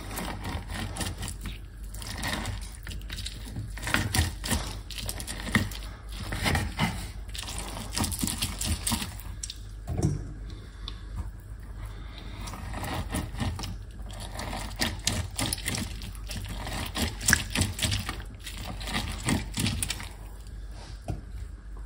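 Orange halves twisted and pressed down on a plastic hand citrus reamer: irregular scraping and squelching of the fruit against the ridged cone, with a few louder knocks of the plastic juicer.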